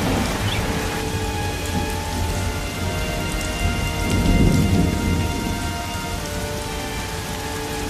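Steady heavy rain, with a low rumble of thunder about halfway through.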